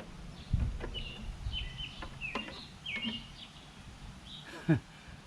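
Small birds chirping in short high calls, clustered around the middle, over a low outdoor rumble, with a few sharp clicks and knocks.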